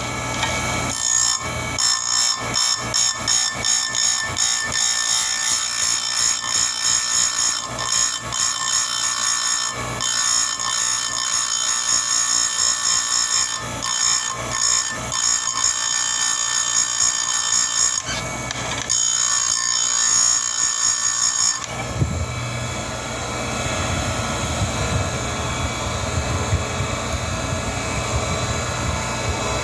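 Bench chainsaw-chain grinder with a CBN wheel grinding the cutters of a saw chain: a high, gritty grinding in a run of rapid passes from about a second in, with a short break about two-thirds of the way through. For the last several seconds only the grinder motor runs, with no grinding.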